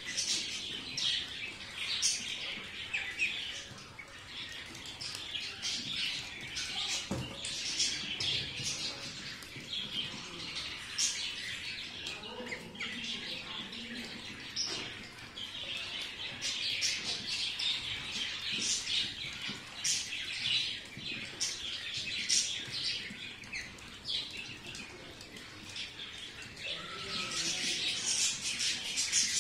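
A flock of young Khaki Campbell ducklings peeping continuously, many short high calls overlapping, growing louder near the end.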